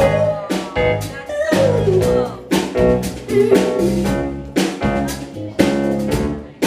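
Live band playing the instrumental opening of a jazzy pop song: drum kit hitting a steady beat under guitar and a pitched melody line that bends up and down.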